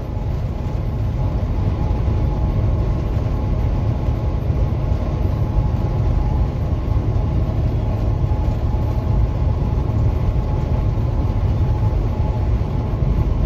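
Steady low rumble of road and engine noise inside a moving vehicle at driving speed, with a faint steady whine above it.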